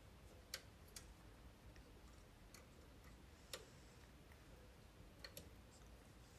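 Near silence broken by a handful of faint, sharp clicks and taps, irregularly spaced, from tools and metal parts being handled while a replacement microwave magnetron is fastened in.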